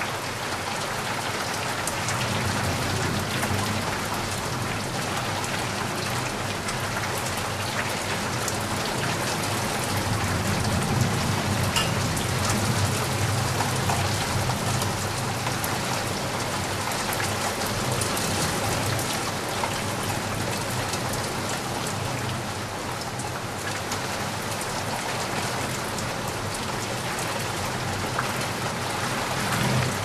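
Heavy rain falling steadily, a dense hiss of drops with scattered sharper ticks. A low rumble of distant thunder swells a couple of times, strongest in the middle.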